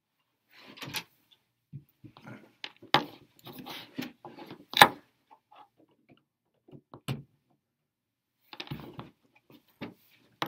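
Handling noise from a charger and its cable being plugged into a wall outlet: rustling with scattered clicks and knocks. The loudest is a sharp click nearly five seconds in.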